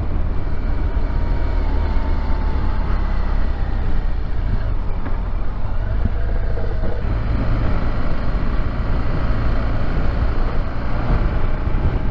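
Motorcycle riding along at road speed, heard from a helmet-mounted camera: a steady engine and road noise under heavy low wind rumble on the microphone.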